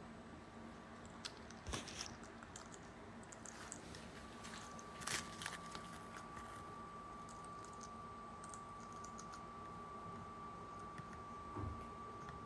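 Faint, scattered light clicks and crackles, with a thin steady tone that starts about four seconds in.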